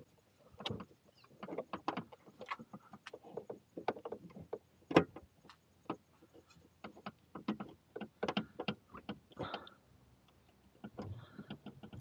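Screwdriver and hands working the latch of a pickup's pop-out rear quarter window: irregular small clicks and knocks as the latch screw is driven back in. The sharpest knock comes about five seconds in.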